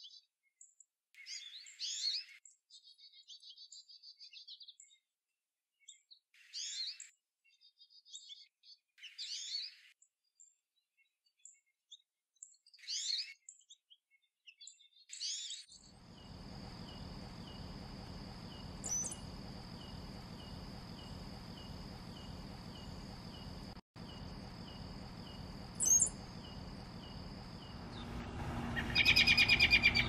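American goldfinch calling: short, high twittering phrases, each with a quick sweep, repeated every two seconds or so. About halfway through the background changes to a steady hiss with a thin high whine and a regular soft ticking, broken by two single high chirps, and a louder burst of calls comes just before the end.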